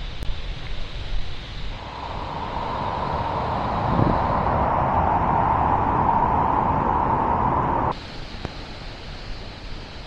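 Wind rumbling on the microphone over a steady rushing hiss. The hiss grows louder about two seconds in and cuts off abruptly near the end.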